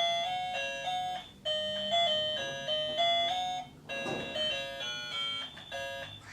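Background music: a chiming melody of quick, evenly paced notes that breaks off briefly twice.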